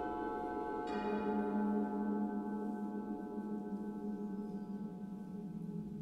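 A contemporary classical chamber ensemble playing slow, sustained music: held notes ring on, and about a second in a new bright, bell-like note is struck and slowly dies away over a low held tone.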